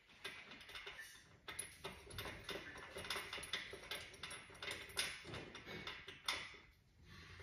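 Irregular light clicks and knocks, several a second at times, of parts and tools being handled while working on an electric bike.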